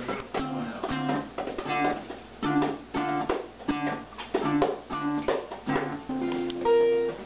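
Steel-string acoustic guitar played solo: a flowing pattern of plucked notes over a bass note that comes back about twice a second, settling on a held, ringing chord near the end.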